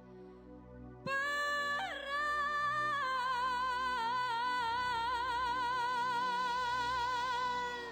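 A song with a singer: after a soft first second, the voice comes in about a second in and then holds one long note with wide vibrato almost to the end.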